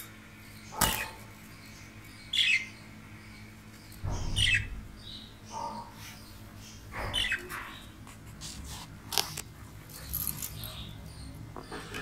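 Pet budgerigars giving short, scattered chirps, one every second or two.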